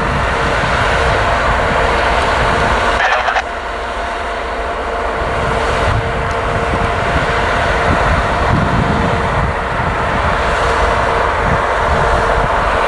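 Diesel locomotives moving slowly, led by a GE B40-8W with its 16-cylinder engine running. A steady engine drone with a constant whine on top.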